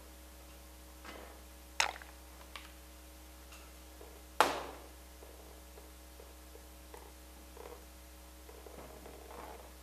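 A framed panel being handled on a workbench: two sharp knocks about two and a half seconds apart, the second louder with a brief ring, amid faint clattering.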